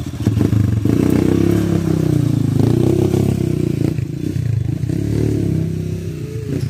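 Motorcycle engine revving unevenly, its pitch rising and falling, as the bike is ridden slowly over rocks, with a few knocks and scrapes from the rough ground.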